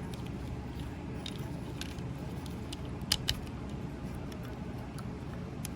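Plastic parts of a Transformers Masterpiece Movie Ratchet figure clicking as they are folded and tabbed by hand: a few short, sharp clicks, the loudest a pair about three seconds in, over a steady low hum.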